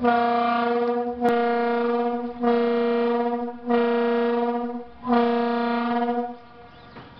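Pontoon bridge's signal horn blowing a series of steady, loud blasts on one pitch: a long first blast, then three shorter ones about a second and a quarter each. It is the signal that the bridge is opening for a boat.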